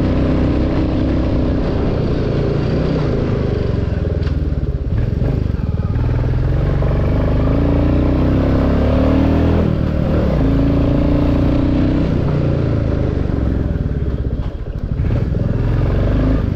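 Royal Enfield Classic 350's single-cylinder engine running under way, with about 35,000 km on it. The revs fall and rise a few times as the throttle is eased off and opened again, with a brief dip near the end.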